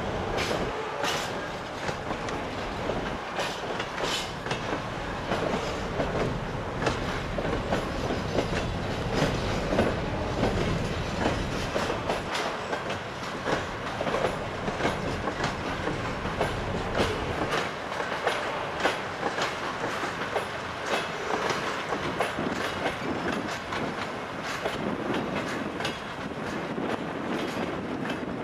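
Freight train rolling past, its wagon wheels clicking steadily over the rail joints in a continuous clatter.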